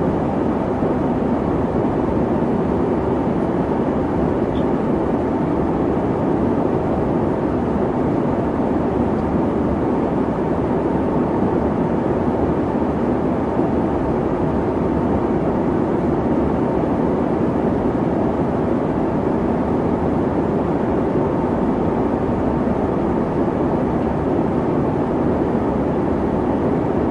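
Boeing 737 in flight: a steady, unchanging rushing noise of jet engines and airflow, with most of its weight in the low-middle range and no changes in pitch or level.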